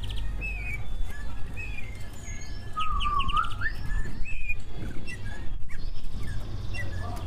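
Cucak ijo (greater green leafbird) singing a varied run of whistles, quick trills and gliding notes, with a loud swooping whistle about three seconds in, over a steady low hum.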